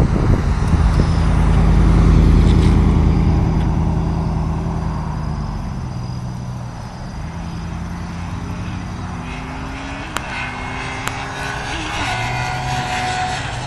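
Suzuki GSX-R sport bike's inline-four engine pulling away hard, loudest about two seconds in and fading over the next several seconds as it goes off. Later a fainter engine note climbs in pitch a few times, as the bike shifts up through the gears.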